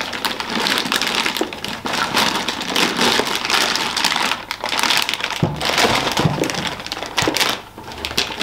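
Plastic wrapping crinkling and rustling as a bagged telescope mount is lifted out of its case and set down, with a couple of dull knocks a little past halfway.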